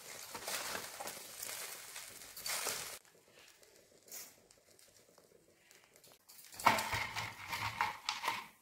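Spatula stirring and tossing cooked rice in a steel kadhai, scraping and rustling against the pan. It goes quiet about three seconds in, then a louder spell of scraping and clatter follows for the last two seconds.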